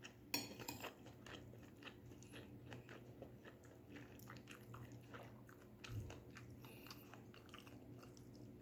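Close-miked chewing of stir-fried vegetables: a steady run of soft crunches and small wet clicks, with a sharper crunchy bite about half a second in and a low thump near six seconds.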